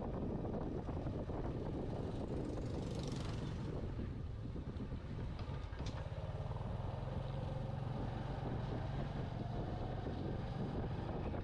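A steady low rumble with wind noise, like a vehicle on the move. A brief hiss swells and fades about three seconds in.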